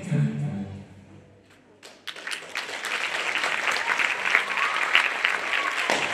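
The last notes of the music die away, then about two seconds in an audience breaks into applause and keeps clapping.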